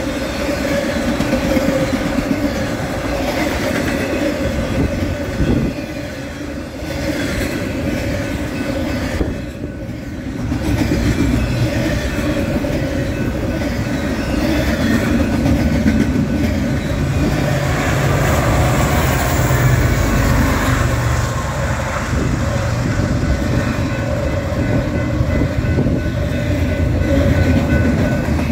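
Intermodal freight train cars rolling past, a steady rumble of steel wheels on the rails.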